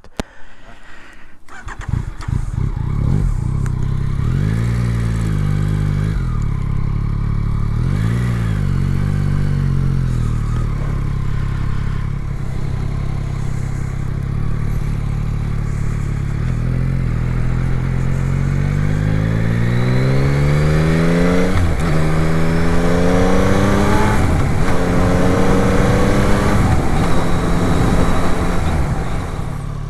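Yamaha XSR900's three-cylinder engine riding along, the note rising and falling with the throttle a few times. It then climbs steadily through the gears, the pitch dropping back at each of two upshifts about two-thirds of the way in, and eases off near the end.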